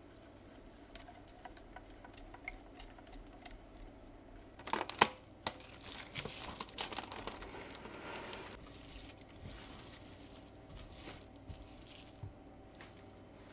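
Plastic cling film pulled and torn off the roll with a sharp rip about five seconds in, then crinkling for a few seconds as it is stretched and pressed over a glass bowl.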